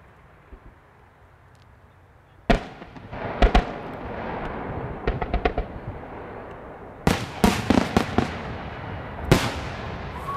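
Large display firework shells going off. After a couple of quiet seconds comes a sharp bang, then more bangs in quick clusters, with a steady hiss between them.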